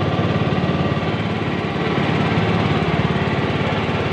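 Engine of a wooden river boat running steadily, with a fast, even chugging beat.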